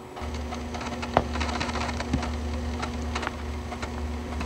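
External USB 3.5-inch floppy drive reading a disk, heard close up: a steady low hum with irregular little ticks and buzzing noises over it, and one sharper click about a second in.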